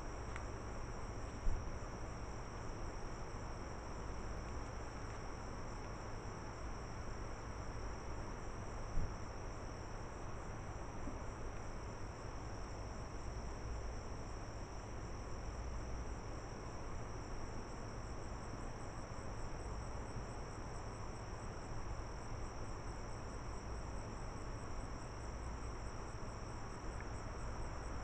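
Night insects trilling steadily at a high pitch, pulsing in places, over a low rumble. Two brief clicks, about a second and a half in and about nine seconds in.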